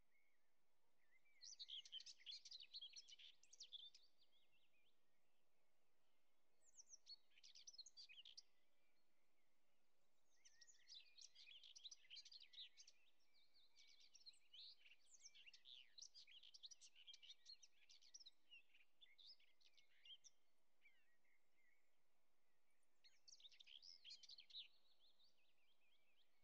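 Faint birdsong: phrases of quick, high chirping notes come and go, with a long run of song through the middle and shorter bursts near the start and end.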